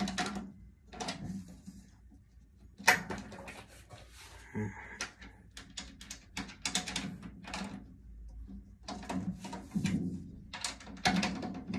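Irregular knocks, clicks and clatter of objects being handled and moved about, a few at a time with short gaps.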